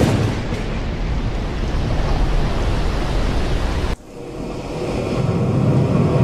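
Recorded storm sound effect of wind and rushing sea waves with a deep rumble underneath. It breaks off abruptly about four seconds in, then builds back up.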